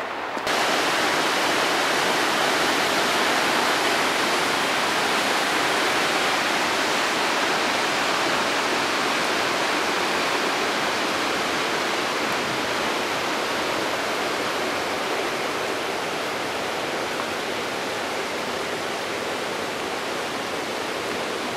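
Steady rush of a waterfall's falling water, starting suddenly about half a second in and easing off a little toward the end.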